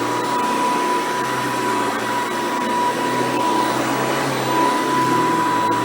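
Hoover Decade 800 upright vacuum cleaner running steadily, a constant motor and fan rush with a high steady whine over it.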